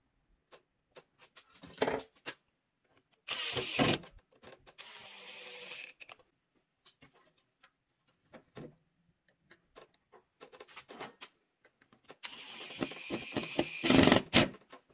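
Cordless drill-driver running in short bursts, driving small screws through a brass butt hinge into the wooden edge of a door, with light clicks and taps of the screws and hinge being handled in between. The longest run comes near the end.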